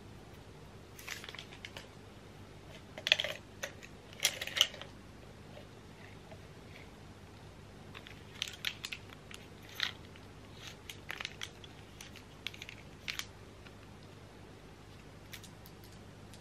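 Makeup brushes being handled and unwrapped: scattered bursts of wrapper crinkle and light clicks of brush handles knocking together, loudest about three to five seconds in.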